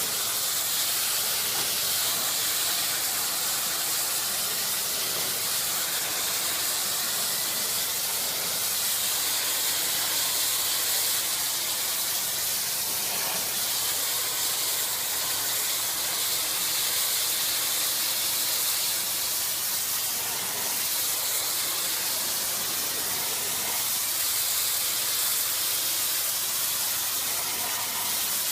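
Hot-water pressure washer, at about 1200 psi and 200 degrees, spraying a steady jet onto a stucco wall: a continuous loud hiss.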